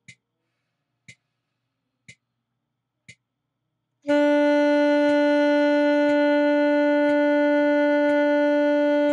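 Metronome clicking about once a second for four beats, then about four seconds in an alto saxophone starts one long, steady held note over the continuing clicks. This is a breath-support long-tone exercise: four beats to breathe in, then the note held on the exhale.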